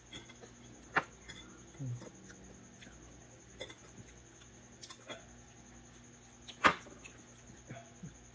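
Mouth sounds of a person eating balut: scattered lip smacks and small sharp clicks, the loudest about six and a half seconds in, with a brief low hummed murmur about two seconds in. A faint steady high whine runs underneath.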